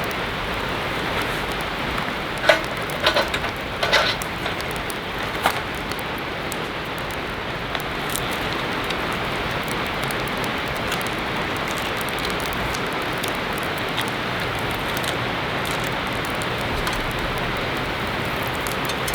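Heavy rain falling steadily, with a few short sharp knocks a few seconds in.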